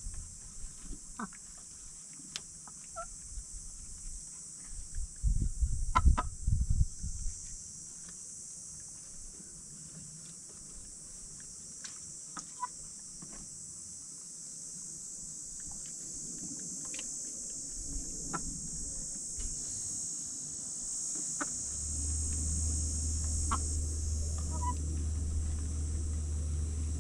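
Chickens clucking now and then, with scattered short pecking clicks, over a steady high hiss. A brief loud low rumble comes about six seconds in, and a steady low hum sets in near the end.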